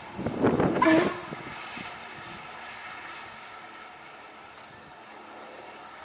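Steam train on the line: a loud burst with a short pitched note about a second in, then a steady running noise.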